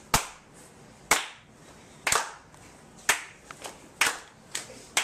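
Sharp hand claps about one a second, with a few quicker, softer claps in between toward the end.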